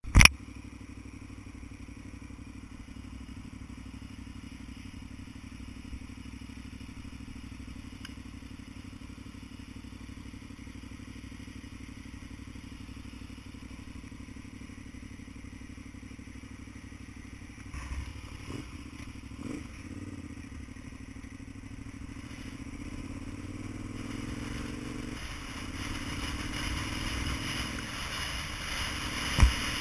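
A vehicle engine running steadily. A few clunks come around eighteen to twenty seconds in, then a rising rush of noise builds as the vehicle gets under way, with a sharp click at the very start and a thump near the end.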